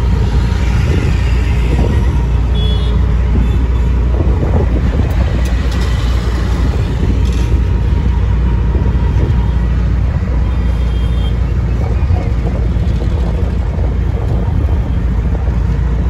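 Auto-rickshaw engine running steadily as it drives along the road, a continuous low drone with road noise, heard from inside the open passenger cabin.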